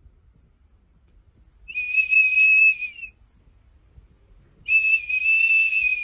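A dog's breath blowing a small plastic whistle held in its mouth: two long, steady, high-pitched whistle blasts, the first about two seconds in and the second near the end, each lasting about a second and a half.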